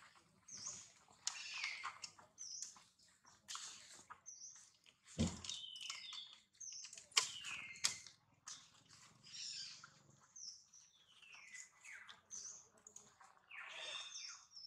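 Repeated short, high chirping calls, each falling in pitch, with clicks and crackles of dry leaf litter and a soft thump about five seconds in.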